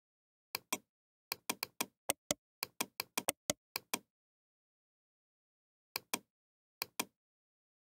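Computer mouse clicks, each a press-and-release pair: a quick run of about nine clicks in the first four seconds, then two more around six and seven seconds in.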